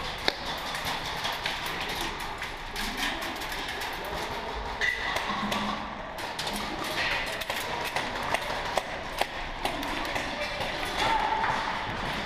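Irregular clicks and knocks of airsoft fire and BBs striking surfaces across the arena, scattered throughout with no steady rhythm.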